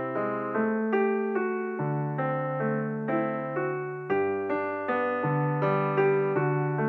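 Background music: a gentle piano playing a steady run of single notes, about two a second, each ringing out and fading.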